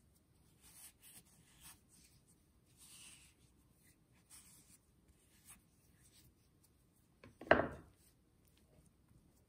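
Silicone spatula scraping and folding a shaggy flour dough in a glass mixing bowl, soft rubbing scrapes about once a second. About three-quarters through, one louder thud as the dough is pressed down by hand.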